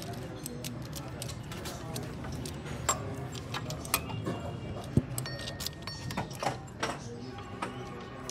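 Scattered light metallic clicks and clinks of hands and tools working on a car engine's timing belt tensioner pulley, over a steady low hum.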